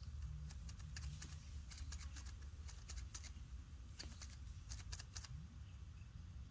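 Faint, scattered crackles and rustles in small clusters over a low steady rumble.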